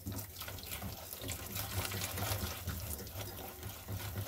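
Hand whisk with green silicone-coated wires beating egg, sugar and lemon yogurt into a runny batter in a bowl: a steady wet swishing with many quick light taps.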